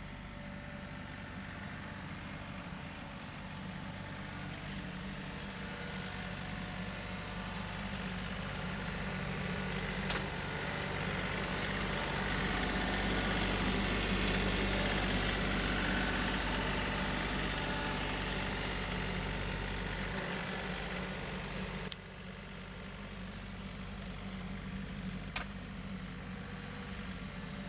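Tractor engine running steadily. It grows louder toward the middle and then eases off, drops suddenly about two-thirds of the way through, and two sharp clicks stand out.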